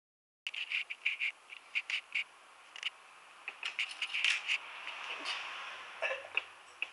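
Adult cat eating dry kibble from a steel bowl through the wire bars of a crate: irregular crunching and light clinks of kibble against the metal bowl, starting about half a second in.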